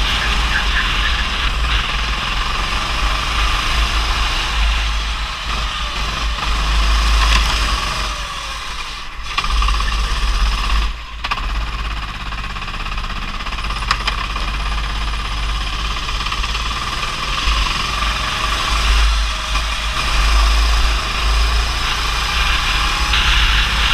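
Rental go-kart's petrol engine running under throttle on a wet track, heard from the kart's onboard camera with heavy wind rumble on the microphone. The engine noise dips briefly twice near the middle.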